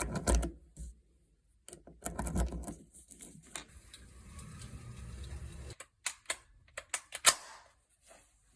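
Ruger 10/22 .22 semi-automatic rifle on a range: a few sharp cracks, the loudest near the end, with clicks and handling noise in between.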